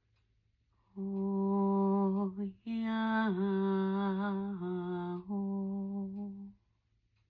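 A woman's voice toning wordless sustained notes: one held note, a quick break for breath, then a longer held phrase with small dips in pitch, fading out about a second before the end.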